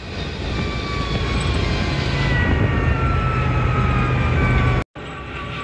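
Open off-road buggy driving on a paved road: engine running under broad wind and road noise, with a whine that falls slowly in pitch from about two seconds in. The sound cuts out for a moment near the end.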